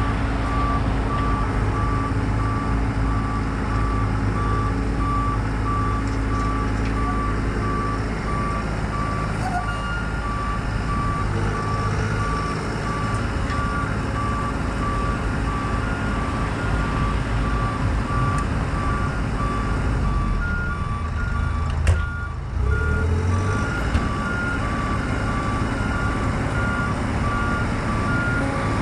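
Compact excavator's diesel engine running while digging, with two backup alarms beeping steadily at slightly different pitches; the higher-pitched one joins about a third of the way in. A single sharp knock about three-quarters of the way through.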